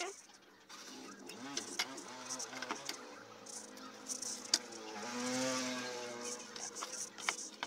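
A passing motor vehicle's engine, getting louder toward about five to six seconds in and then fading. Scattered sharp clicks and knocks come from a metal TV chassis and bracket being handled on the bench.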